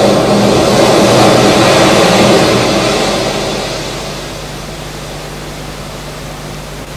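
A sea wave breaking: a rush of surf that swells over the first two or three seconds, then dies away to a steady hiss over a low hum.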